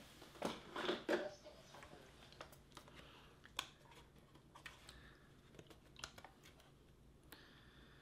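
Plastic clicks and knocks as the water tank of a Neabot Q11 robot vacuum is pulled out and turned over in the hands. A cluster of louder knocks comes in the first second or so, then faint scattered clicks.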